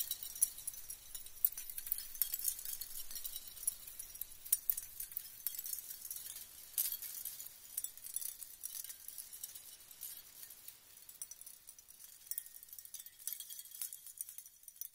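Faint, scattered high-pitched tinkling and clinking, irregular and glassy, thinning out in the last few seconds.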